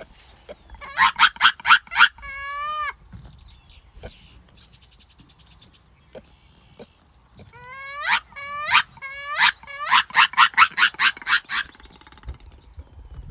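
Farm animals calling: two bouts of loud, rapid calls at several beats a second. The first, about a second in, ends in a short wavering note. The second starts about eight seconds in and opens with a few rising calls.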